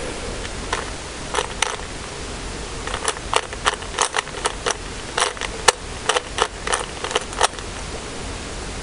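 Rubik's cube being turned by hand: a run of quick plastic clicks as its layers are twisted, coming thicker from about a third of the way in, over a steady hiss.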